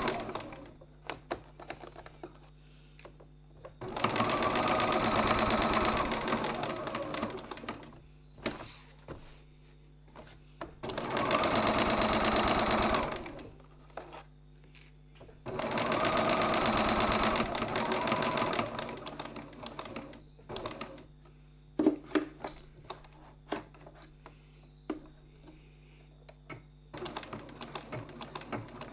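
Domestic sewing machine stitching a seam in runs of two to four seconds, stopping and starting about four times as the fabric is guided up, across and down. Small clicks and knocks of handling fill the pauses.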